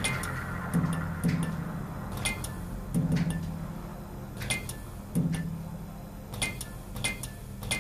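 Sharp, unevenly spaced clicks and ticks, roughly one or two a second, over a low droning hum that swells now and then: eerie sound design for a dark, empty room.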